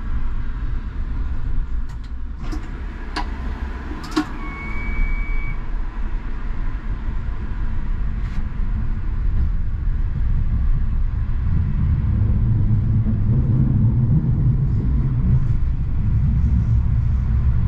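Škoda 39T tram heard from on board: a steady low rumble that grows louder about two-thirds of the way through. Four sharp clicks come in the first four seconds or so, and a brief high beep sounds about four and a half seconds in.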